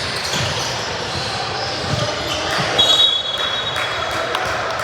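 Referee's whistle blown once for about a second and a half near the middle, a shrill two-tone blast, over basketballs bouncing on a gym floor and steady hall noise.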